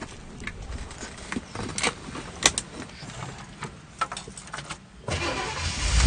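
Seat belt buckle and ignition keys clicking and rattling, then about five seconds in the classic Chevrolet's starter cranks and the engine starts, getting louder at the end.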